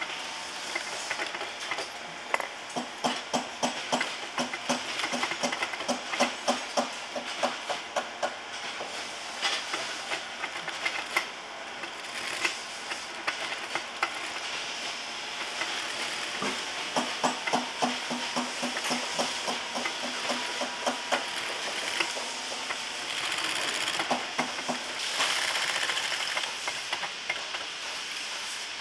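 Post-bed industrial sewing machine stitching a leather boot upper: regular needle-stroke clicks about three a second, in two runs of stitching with pauses between, over the steady hiss of the running motor.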